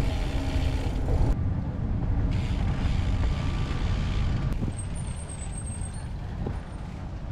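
Wind buffeting the microphone and bicycle tyres rumbling on a paved path while riding; the rumble eases as the bike slows onto grass about four to five seconds in, with a brief thin high squeal soon after.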